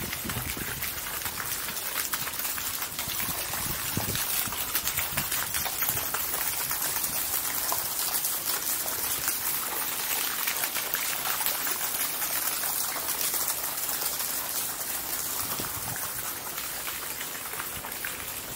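Water splashing and trickling from a garden fountain, a steady rush that grows louder through the middle and eases toward the end.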